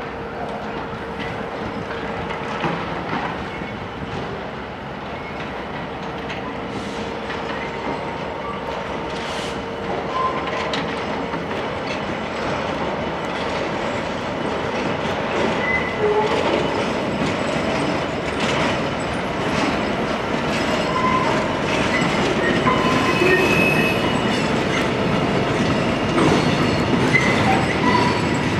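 EWS Class 66 diesel-electric freight locomotive passing at slow speed with a train of tank wagons, a steady hum through the first dozen seconds. The wagons' wheels clack over the rail joints and pointwork, with short high squeals from about ten seconds in, and the sound grows gradually louder.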